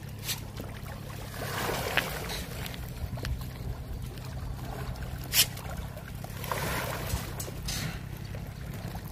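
Fish splashing and slurping at the water surface as they take floating feed pellets. A few sharp splashes stand out, the loudest about five seconds in, over a steady low hum.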